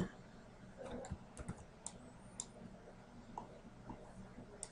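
Faint, scattered clicks of a computer mouse and keyboard, a handful spread over a few seconds, with a low steady hum underneath.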